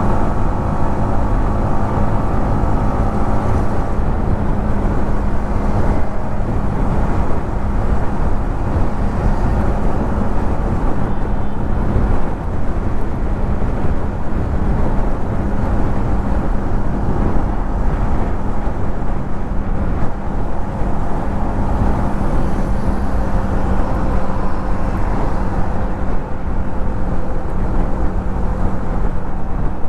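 Yamaha MT-15's 155 cc single-cylinder engine and exhaust running at steady cruising revs while riding, heard under a dense rush of wind and road noise.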